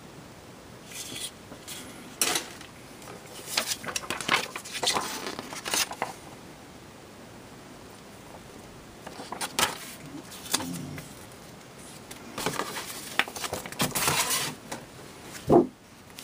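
Plastic model-kit parts and paper leaflets being handled: irregular bursts of light plastic clicks and clacks mixed with paper rustling, ending with a sharper thump near the end as the instruction manual is set down on the table.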